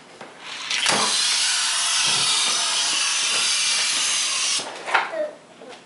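Die-cast Hot Wheels car rolling along orange plastic track, a steady hiss from the wheels on the plastic that starts with a click about a second in and stops about a second before the end, followed by a few light clicks and clatter.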